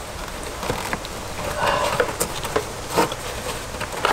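A circuit breaker being forced and wiggled into an old Zinsco panel by gloved hands: irregular plastic-and-metal clicks and knocks with a short scrape about one and a half seconds in. The breaker will not seat because the panel's bus stab is damaged, charred from earlier arcing.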